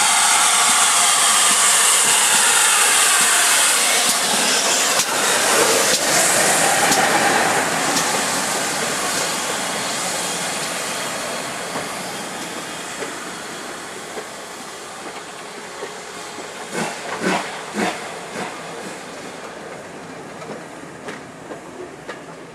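Steam locomotive passing close with a loud hiss of steam, then a train of Great Western coaches rolling by, wheels clicking over the rail joints, the sound fading as the train draws away.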